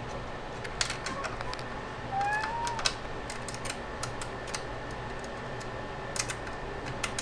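Scattered light clicks and taps of hand assembly work on an electric dirt bike, with a short rising squeak a little over two seconds in, over a steady low hum.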